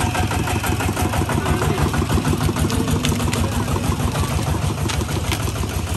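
A small engine running steadily at a fast, even pulse.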